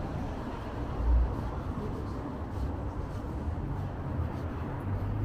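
Steady low rumble of city-centre ambience, with a brief low thump about a second in.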